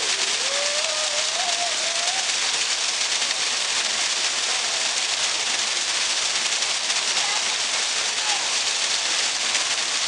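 Artificial waterfall: a column of water falling steadily into a shallow pool, with an even splashing rush. A faint voice is heard briefly in the first couple of seconds.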